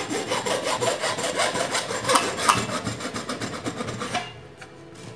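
Hacksaw cutting lengthwise into a 3/4-inch white PVC pipe, with quick, even back-and-forth strokes that stop about four seconds in.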